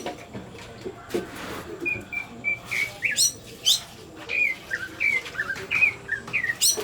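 Cucak ijo (green leafbird) singing: a rapid run of short whistled notes, many dipping in pitch, with a few sharp rising calls mixed in.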